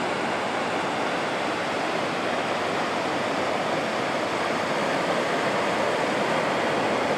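Ocean surf breaking and washing up on a sandy beach, heard as a steady, even rush.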